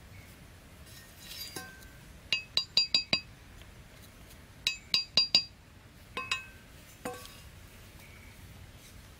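Machete blade tapping on a bamboo stick, giving sharp, ringing metallic clinks: a quick run of five taps about two seconds in, another run of about five a little before the middle, then a pair and a single tap.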